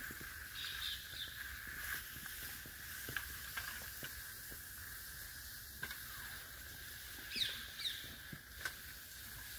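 Faint, scattered rustles and crackles in dry leaf litter as a released Russell's viper moves off, over a steady high-pitched drone. A couple of short falling chirps come about seven and a half seconds in.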